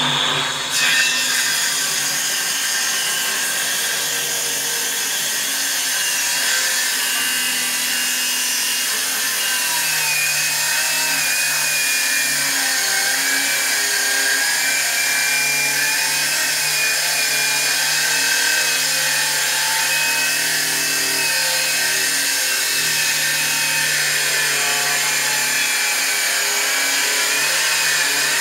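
Parkside PHKSA 20 A2 cordless circular saw cutting through wood under load: a steady, loud motor whine and blade noise whose pitch wavers slightly as the cut is fed.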